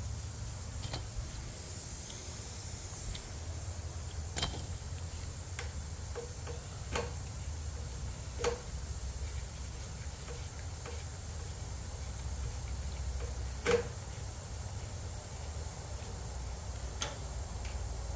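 Scattered sharp clicks and light knocks of hand tools and metal parts as screws and nuts are taken off a pressure washer's engine, about half a dozen over a steady low hum; the loudest knock comes near the end.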